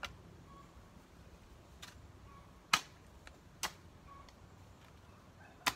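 Long-handled garden tool striking into soil: five sharp clicks at uneven intervals, the loudest nearly three seconds in.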